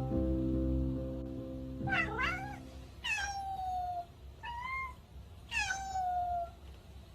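A domestic cat meowing four times, most of the calls sliding down in pitch. Background music fades out over the first few seconds.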